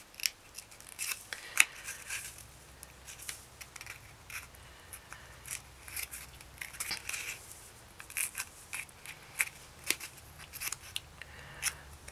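Paper crinkling and rustling between the fingers as a paper rose's petals are rolled and pressed, in many short, irregular crackles.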